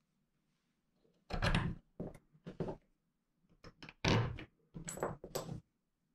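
Brass cartridges being handled on a wooden display board: a series of short knocks and thunks, loudest about four seconds in, with a light metallic clink about five seconds in.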